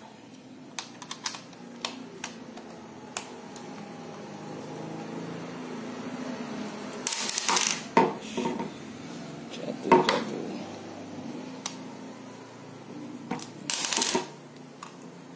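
Small metallic clicks and scrapes of a screwdriver turning out the blade screws of a hair clipper, with a few louder clatters, the loudest near the end as the screwdriver is laid down on the table.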